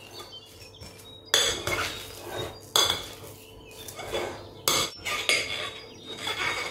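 Metal spoon stirring and scraping mashed potatoes in a white ceramic bowl, clinking sharply against the bowl several times.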